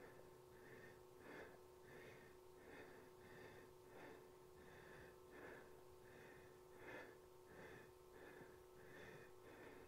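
Faint, rhythmic heavy breathing of a woman working hard through scissor kicks, about two breaths a second, over a steady low hum.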